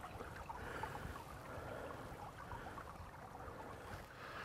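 Faint outdoor background noise: a low steady rumble with scattered faint ticks.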